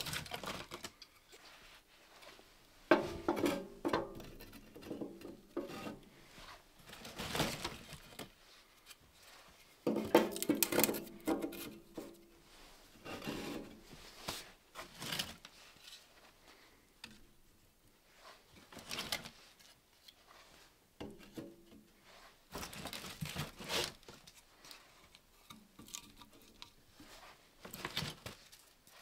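Split kindling sticks knocking and clattering against one another and the metal firebox of a wood stove as they are stacked by hand to build up a small, freshly lit fire. The clatter comes in several bunches, loudest about 3, 10 and 23 seconds in, with rubbing and rustling in between.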